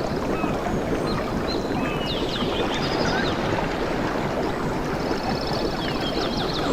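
Steady rush of water, with small birds chirping over it in short sliding notes and a fast high trill near the end.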